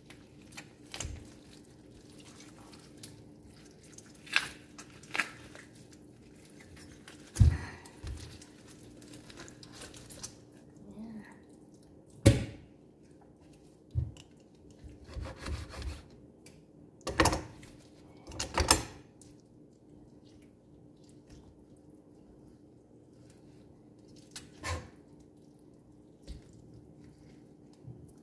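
Skin being pulled from a raw whole chicken by hand on a plastic cutting board: wet squelching and slapping, with scattered knocks on the board, the sharpest about 7 and 12 seconds in and a pair near 17 to 19 seconds. A faint steady hum lies underneath.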